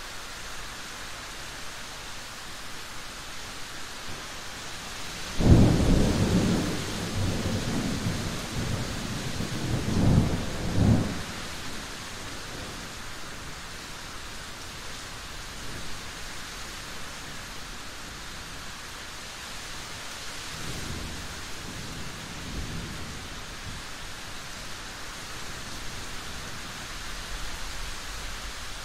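Steady rain hiss of a thunderstorm. A loud thunderclap breaks about five seconds in and rumbles on for several seconds, with a second surge around ten to eleven seconds. A fainter, more distant rumble of thunder follows about two-thirds of the way through.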